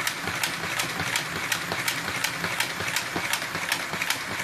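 Carrera Go slot car running continuously around a vertical looping track: its small electric motor whirs steadily, with a sharp click about three times a second as it circles the loop.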